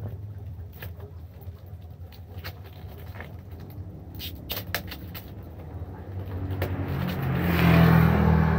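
Scissors snipping and plastic wrapping crinkling as the film is cut off a new motorcycle tyre, heard as scattered sharp clicks and rustles. A motor vehicle's engine hums low underneath and swells near the end, becoming the loudest sound as it passes close.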